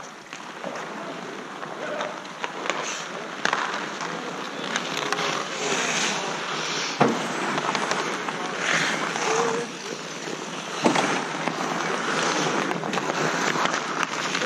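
Ice hockey skates scraping and carving across the ice of an outdoor rink, a steady run of swishes, with two sharp knocks against the boards about seven and eleven seconds in.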